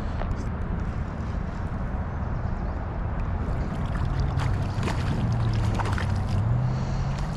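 Steady rush of river water with low rumbling wind on the microphone, and a few faint clicks about halfway through.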